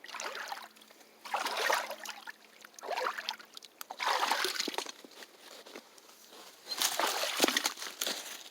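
Boots wading through shallow stream water, sloshing and splashing in about five uneven steps.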